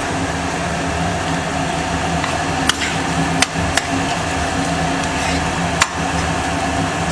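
A kitchen utensil knocking against a bowl four times while the spiced potato stuffing is mixed, over a steady hum.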